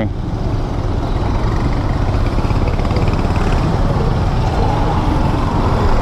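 Riding a motor scooter in slow city traffic, heard from a helmet-mounted camera: a steady, loud low rumble of engine and wind on the microphone, with the surrounding traffic behind it.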